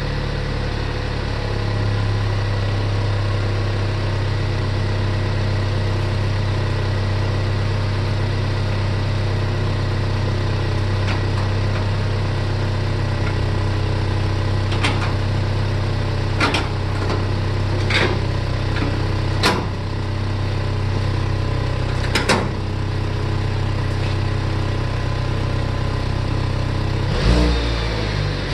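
Chevrolet Cruze's swapped-in LHU 2.0L turbocharged four-cylinder idling steadily after a cold start, heard through a 3-inch exhaust into the stock Cruze muffler with the exhaust cutout closed. A few sharp clicks sound about halfway through, and the engine starts to rev near the end.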